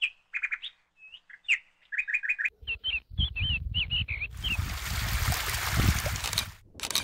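Small birds chirping in short, quick high notes, some in rapid runs of about four a second, others slurred up and down. From about halfway, wind buffets the microphone as a low rumble, then a loud rush of wind noise covers the last couple of seconds.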